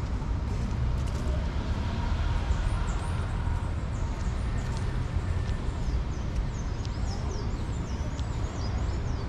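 Steady low outdoor rumble, with small birds chirping repeatedly in quick high chirps from about two and a half seconds in.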